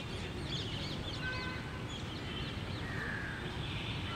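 Small birds chirping in many quick, short calls over a steady low background rumble.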